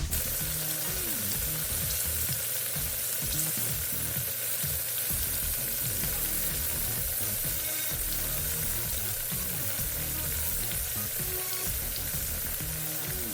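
Flour-coated, buttermilk-battered chicken deep-frying in hot oil, a steady, even sizzle.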